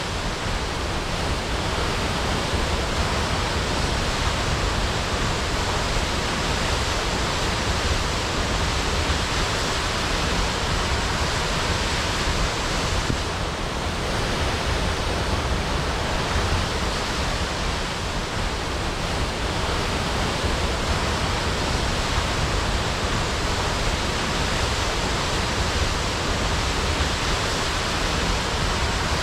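Waterfall crashing: a steady, even rush of falling water.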